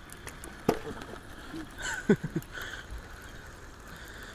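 Spinning reel being wound steadily to retrieve a lure, with a sharp knock just under a second in.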